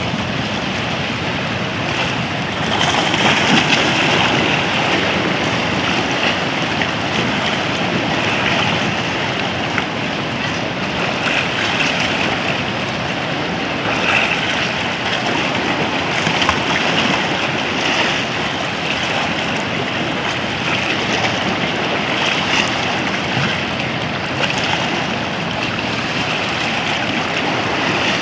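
Sea waves washing and breaking around rocks in shallow water: a steady rushing surf, swelling louder a few times.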